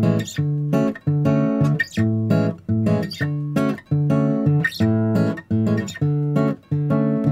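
Background music: acoustic guitar strumming chords in a steady, regular rhythm.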